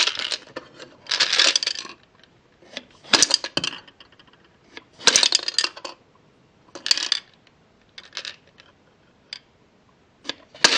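Small hard candies rattling and clattering inside the clear plastic dome of a Cut the Rope candy-dispenser game as it is flicked and jiggled, in about six short bursts a second or two apart.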